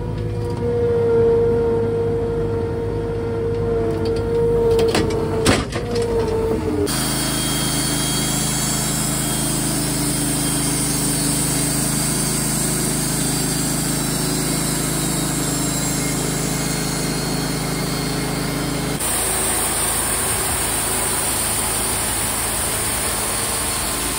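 Wood-Mizer LT35 hydraulic portable sawmill running: a steady engine drone. In the first seconds there is a steady whine and a few sharp knocks around five seconds in. The sound then changes abruptly to an even engine-and-machinery drone about seven seconds in, and again near the end.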